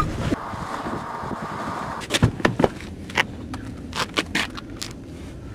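A fistfight: a steady rush of noise, then from about two seconds in a string of sharp thumps and slaps as blows land on a man lying on the ground.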